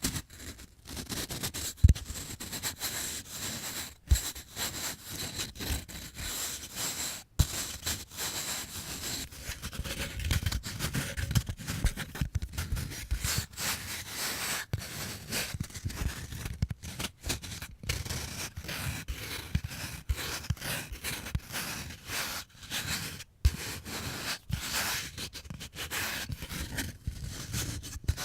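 Fingers rubbing and scraping back and forth across skateboard grip tape in many short strokes, a gritty rasp, with a few sharp knocks along the way.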